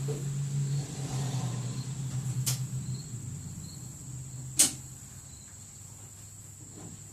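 Two sharp clicks about two seconds apart, the second louder, over a steady high whine and a low hum that fades partway through.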